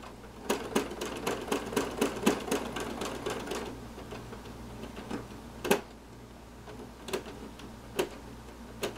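Home sewing machine stitching free-motion embroidery through a baseball cap. First comes a quick run of needle strokes for about three and a half seconds, then a few single stitches spaced about a second apart as the hoop is moved slowly by hand.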